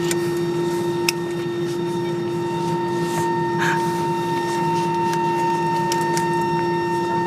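Steady airliner cabin noise while parked after landing: a constant hum with several fixed whining tones from the aircraft's running systems, with a few short clicks.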